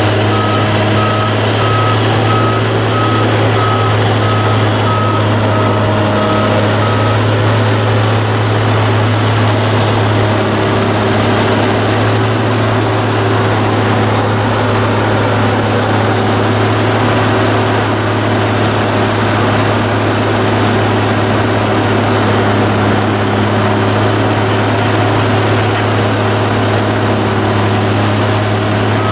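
Heavy diesel engine of a Link-Belt Mantis crawler crane running steadily as the crane travels on its crawler tracks. A travel/backup alarm beeps steadily for about the first seven seconds, then stops.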